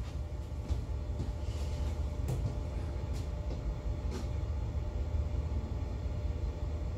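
A superyacht's bow thruster running steadily with a low mechanical rumble, holding the bow in after the main engines are stopped. Three faint ticks come about a second apart near the middle.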